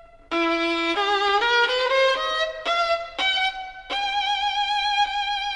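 Background music: a solo violin playing a melody with vibrato, stepping up through short notes and then holding one long note from about four seconds in.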